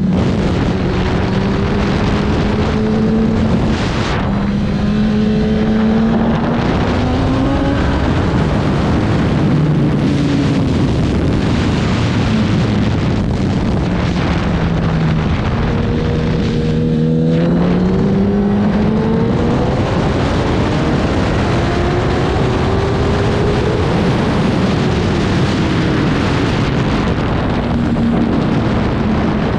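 Superbike engine at race pace, revs climbing and falling repeatedly, with a few sudden drops in pitch as gears change, over a steady rush of wind noise.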